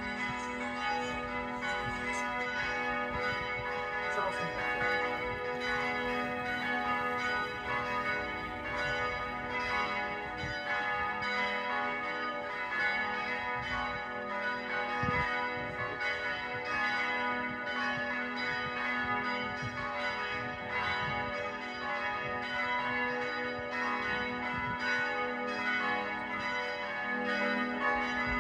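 Church bells ringing continuously, many bells struck one after another so their tones overlap in an unbroken peal.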